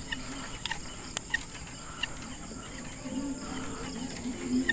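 Steady high-pitched insect trilling from the pond bank, with two sharp clicks about a second in.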